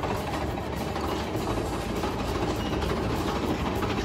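Big Thunder Mountain Railroad mine-train roller coaster running along its track: a steady mechanical rattle with dense clicking.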